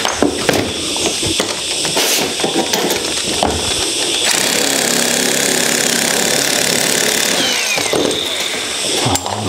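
Cordless electric metal shear running as it cuts through galvanized steel sheet: a steady high motor whine with the rattle of the cutting head. The run is most even through the middle, with short stops and clicks in the first few seconds.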